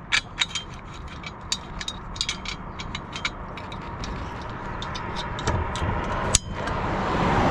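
Bike rack being set up: a run of sharp, irregular metal clicks and ratchet-like rattles, followed by a rushing noise that grows louder toward the end.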